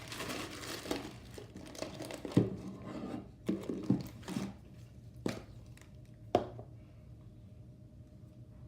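Slime being handled and squished by hand, with crackly crinkling for the first few seconds, then several sharp pops and clicks before it goes quiet.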